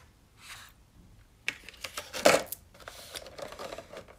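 A clear plastic lid being pressed onto a plastic takeaway food container: a run of small clicks and crackles of thin plastic starting about one and a half seconds in, the loudest just over two seconds in.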